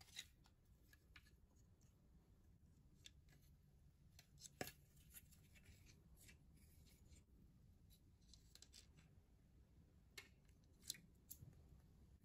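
Faint handling of a plastic projector kit's parts: scattered small clicks and taps as pieces are turned over and fitted, the sharpest about four and a half seconds in and again near eleven seconds.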